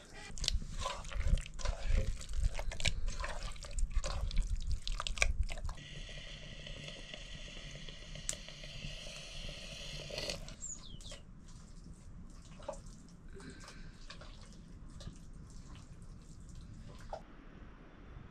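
Water splashing and pouring among knocks and handling noise. A steady pour runs for about four seconds in the middle and stops suddenly, followed by lighter scattered clicks and drips.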